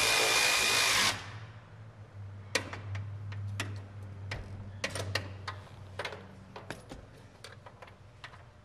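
A power drill/driver runs the steering column's mounting bolts in with a steady whine and stops about a second in. Then scattered clicks and metal knocks from the bolts and column being handled, over a low steady hum.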